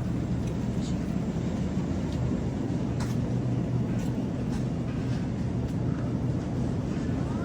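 Steady car engine and road noise heard from inside the cabin while driving, a constant low hum.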